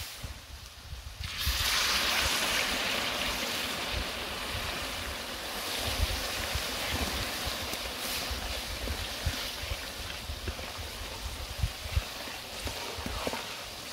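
Hot butter-and-flour halva mixture in a large metal basin over coals, hissing and sizzling as liquid boils in it while a wooden spoon stirs. The hiss starts suddenly about a second and a half in and eases a little near the end.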